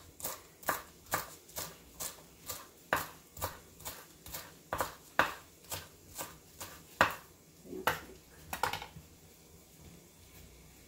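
Kitchen knife chopping fresh cilantro on a wooden cutting board, in steady knocks of about two a second that stop about nine seconds in.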